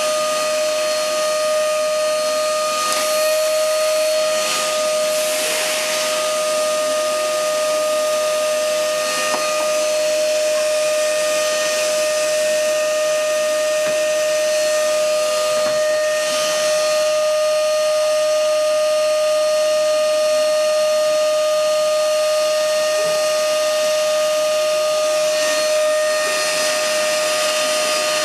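Canister vacuum cleaner running steadily: a high, even motor whine over the rushing hiss of suction.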